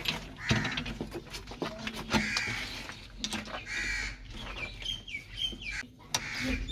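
Hand pump (nalka) being worked by its handle: a harsh squeak on each stroke, about every second and a half to two seconds, with sharp knocks in between.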